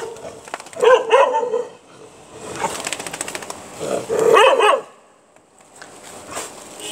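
A dog barking several times in short bursts, the last and longest about four seconds in.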